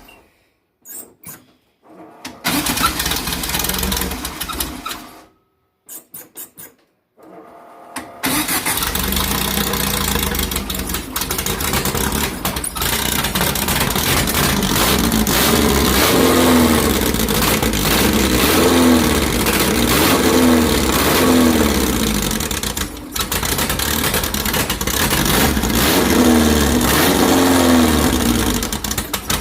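2332cc air-cooled VW flat-four on dual Empi HPMX 44 carburettors starting. Short bursts of engine sound break off into silence twice, then the engine keeps running from about eight seconds in and is revved up and down several times. It is running rough on its freshly refitted carbs before the mixture screws are set.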